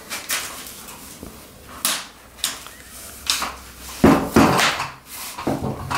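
Clicks and clunks from a carbon-fibre shooting tripod as its legs are swung open and snapped into their locking positions. A few sharp separate clicks come first, then heavier clunks in the last two seconds.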